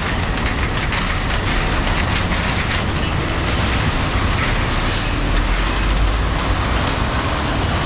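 Road traffic crossing a level crossing: city buses and cars driving over the rails, a steady mix of engine and tyre noise.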